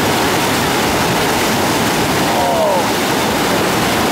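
Loud, steady roar of a swollen, muddy river rushing through a breaking standing wave, whitewater churning over logs and branches.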